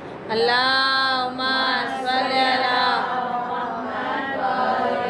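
A woman's voice chanting a devotional recitation in long, held, gently wavering notes, starting suddenly just after the beginning.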